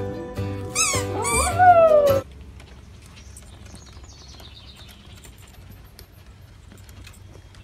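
Dog howling along with a music-playing toy. The howl rises and is held for a moment, then cuts off abruptly about two seconds in, leaving only faint low sounds.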